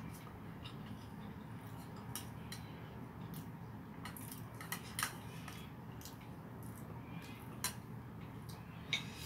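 Eating by hand from a ceramic plate: scattered light clinks and taps of the plate and a serving spoon, with a few sharper clinks about halfway and twice near the end, over a steady low hum.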